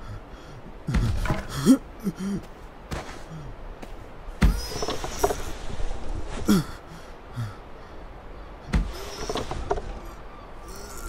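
A sheep's short strained grunts and huffs, gliding up and down in pitch, while it struggles with a rope knotted round a tree branch, with three dull knocks along the way.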